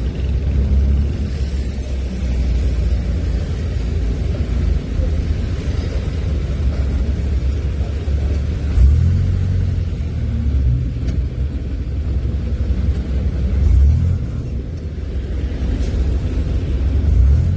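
Low, steady rumble of a car's engine and tyres heard from inside the cabin while driving slowly in traffic, swelling briefly a few times.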